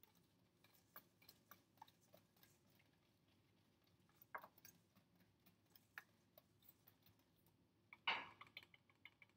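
Wire whisk stirring pancake batter in a stainless steel bowl: faint, irregular clicks of the wires against the steel, with a louder brief scrape about eight seconds in as the whisk is lifted out.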